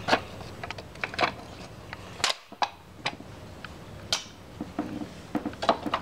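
Sharp plastic clicks and knocks at irregular intervals as the wheels are pressed back onto the base of a Hoover upright vacuum cleaner.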